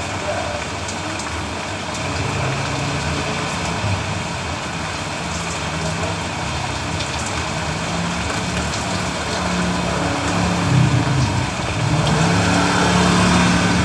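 Steady rain hiss with the low hum of a vehicle engine that grows louder in the second half.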